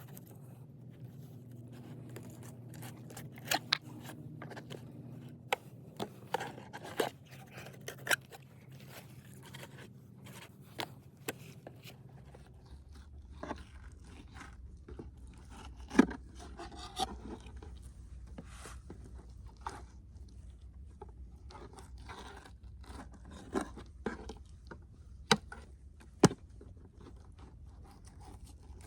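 A fillet knife scraping and crunching through crappie while the fish are cleaned and filleted, with scattered sharp knocks of the knife or fish on the cutting surface. A faint steady hum runs underneath and drops lower about halfway through.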